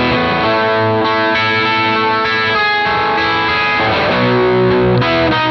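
Electric guitar played through a clean boost pedal pushing a valve amplifier into overdrive: a run of ringing notes and chords, thick with overtones.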